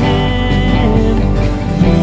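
Live worship band playing: strummed acoustic guitar over drum kit, electric bass and electric guitar, in a passage between sung lines.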